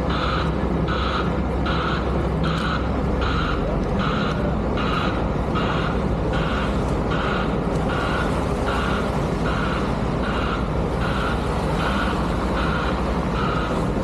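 Reversing alarm on snow-removal machinery beeping at an even pace over the steady running of heavy diesel equipment.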